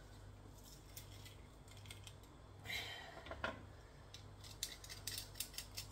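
Stainless-steel garlic press being opened and the crushed garlic scraped off it: small metallic clicks and scrapes, most of them in the second half, over a faint low hum.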